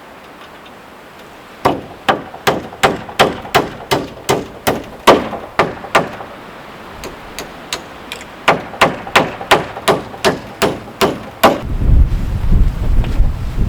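Hammer driving nails into wood: two quick runs of sharp blows, about three a second, with a short pause between. Near the end, wind buffets the microphone with a loud low rumble.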